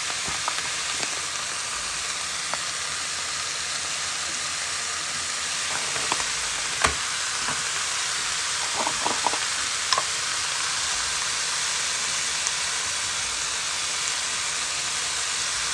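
Ground wild boar frying in a pan, a steady sizzle, with scattered clicks and a few light knocks of stirring.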